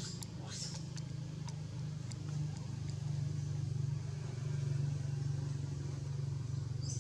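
Steady low hum of a running vehicle engine, getting a little louder about three seconds in. A few faint, short, high squeaks or clicks in the first second and a half.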